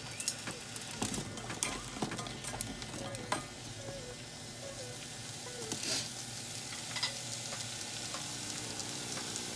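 Potatoes frying in olive oil in a small frying pan, sizzling steadily, with a spatula knocking and scraping against the pan a few times as they are stirred.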